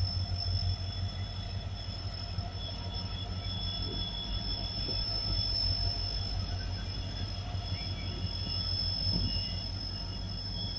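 WDG4 diesel-electric locomotive's two-stroke V16 engine running as the locomotive passes slowly, a steady heavy low rumble, with a steady high-pitched tone above it.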